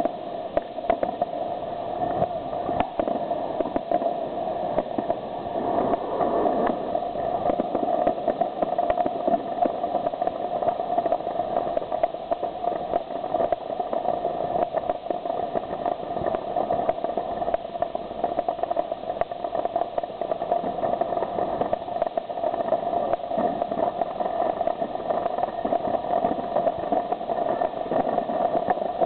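Fireworks display going off in a dense, continuous barrage of bangs and crackles.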